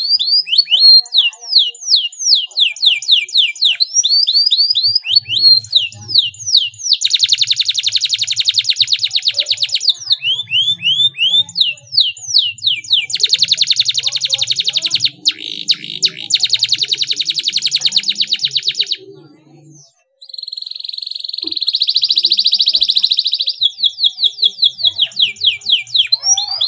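Domestic canary singing a long song. Series of quick downward-sweeping whistled notes alternate with fast, tight buzzing rolls. After a brief pause, a steady held note runs for about three seconds, then the sweeping notes return.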